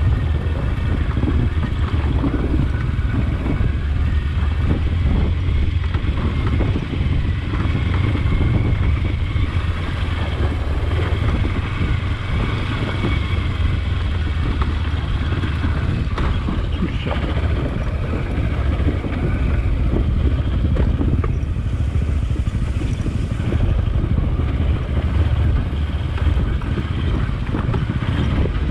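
Adventure motorcycle being ridden at a steady pace, its engine running continuously under a strong low rumble of wind and road noise.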